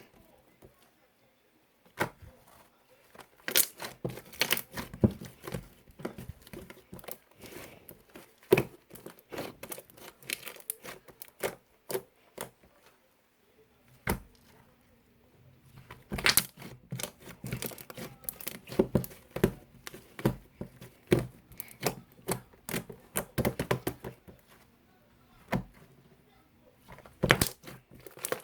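Hands working a firm slime: dense runs of sharp clicks, pops and crackles as it is pressed, stretched and folded, coming in bursts with short pauses between them.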